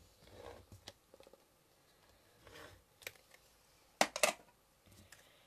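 Scattered light clicks and taps of small hard objects handled on a desk, with a burst of about three sharp, loud clicks about four seconds in.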